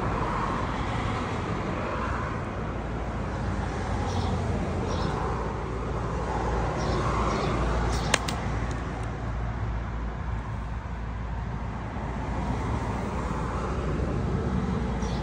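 Steady low background rumble, like distant road traffic, with one sharp click about eight seconds in.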